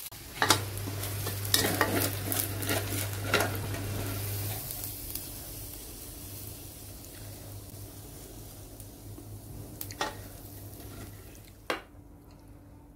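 A steel spatula stirs and scrapes stir-fried glass noodles with minced pork and cabbage in a sizzling wok, clicking against the metal pan during the first few seconds. The sizzling carries on, with two single knocks near the end, and then fades out.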